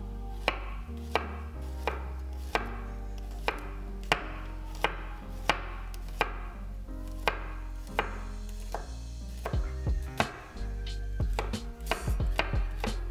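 A chef's knife slicing garlic cloves on a wooden cutting board, each stroke a sharp tap of the blade on the board. The strokes come slow and even, about one every two-thirds of a second, then speed up into quicker chopping near the end.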